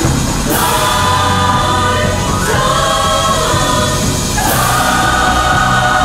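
A choir of many voices singing a Chinese-language song together with musical accompaniment, a new sung phrase starting about every two seconds over a steady bass.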